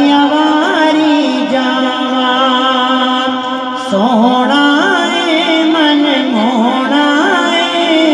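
Male voice singing a Punjabi naat without instruments, in long ornamented melismatic lines, over a steady held low note, amplified through microphones.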